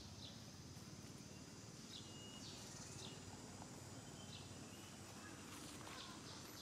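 Faint outdoor background: a steady low rumble with a few faint, short, high chirps scattered through.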